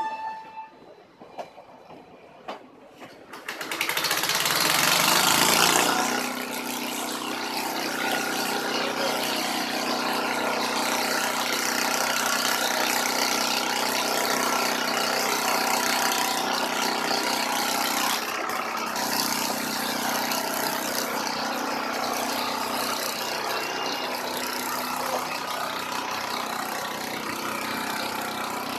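A steady engine noise, a hum with a strong hiss over it, that comes in suddenly about three and a half seconds in. It is loudest for the next two seconds, then settles and runs on evenly.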